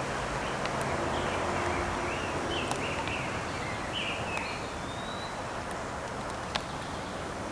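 Bird chirping in short, stepped phrases over steady outdoor background noise, with a few light clicks.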